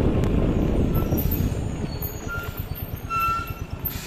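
Low rumble of a flatbed trailer truck and road noise, easing off slightly, with a short high beep about two seconds in and a longer, louder beep just after three seconds.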